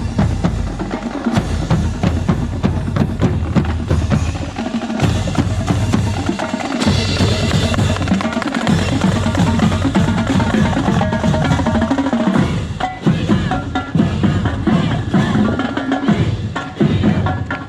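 High school marching band drumline playing a continuous cadence on snare drums and bass drums.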